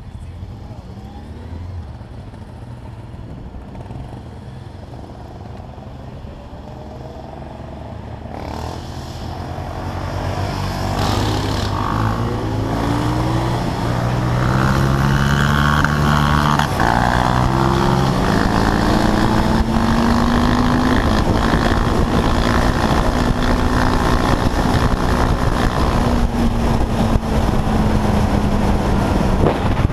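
Quad bike (ATV) engine heard from on board: running quietly for the first few seconds, then revving up through several gear changes from about ten seconds in, and settling into a loud, steady cruise whose pitch slowly falls, with wind and road noise.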